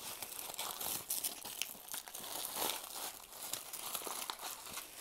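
Brown paper packaging crumpling and crinkling as it is handled and pulled open: an irregular run of crackles.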